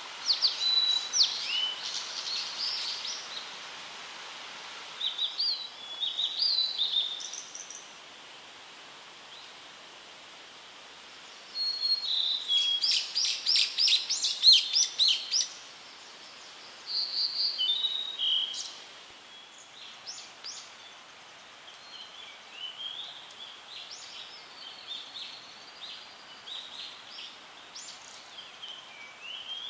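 Blue-and-white flycatcher singing: repeated phrases of clear, fast whistled notes, the loudest about twelve to fifteen seconds in, with softer phrases later, over a steady background hiss.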